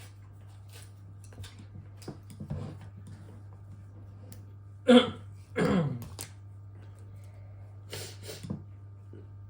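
A young child's two short, loud cough-like bursts about five seconds in, the second longer and falling in pitch, among a few small clicks.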